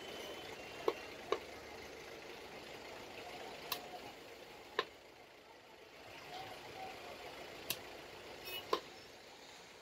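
A long heavy knife cutting through a large fish and knocking on a wooden log chopping block: about six short, sharp knocks, over a steady background hum.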